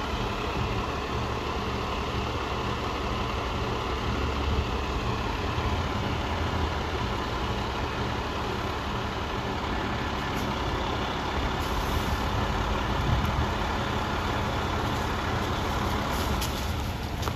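Fire engine's diesel engine running steadily with a low hum.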